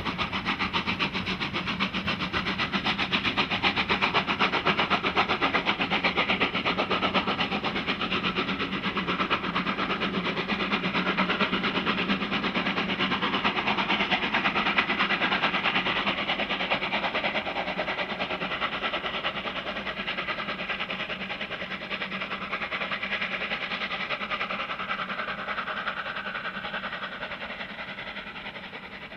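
Departing steam-hauled train: the three-cylinder DRB Class 03.10 Pacific 03 1010 pulling away as its coaches and car-carrier wagons roll by with a steady rapid clatter over the rail joints. The sound fades near the end as the train draws off.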